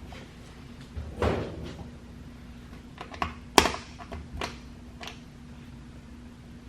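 Several light knocks and clicks of hardware being handled, the sharpest about three and a half seconds in, over a faint steady hum.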